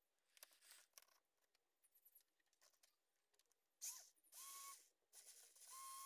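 Faint handling of a small plastic toy-car gearbox: a metal axle shaft being pushed and twisted through it, scraping and clicking, then two longer scraping squeaks from about four seconds in.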